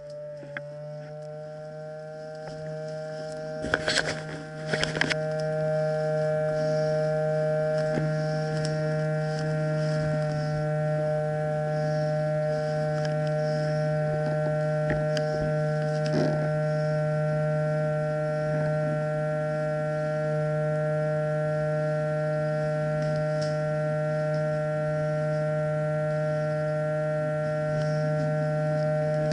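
A steady drone of several held pitches that does not change, with a short cluster of sharp clicks about four seconds in and another about a second later.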